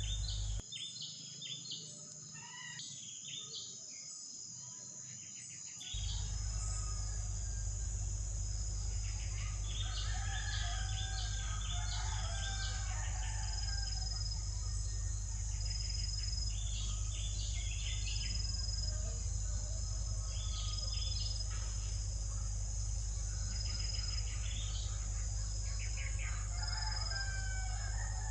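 Birds chirping in short repeated clusters over a steady high insect drone and a low constant hum.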